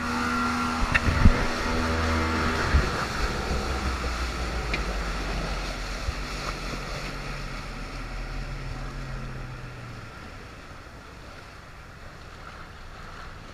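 A boat's motor running under way, with water rushing and splashing along the hull and wind on the microphone. The motor's hum fades and drops away about ten seconds in, leaving a softer wash of water.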